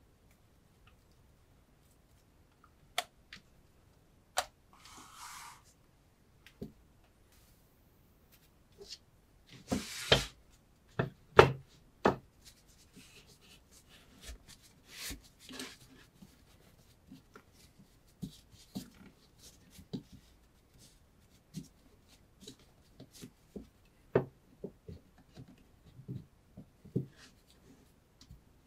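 Hands handling a knife and test materials on a tabletop: scattered light clicks, taps and short rustles, with a louder cluster of scraping and knocks about ten seconds in.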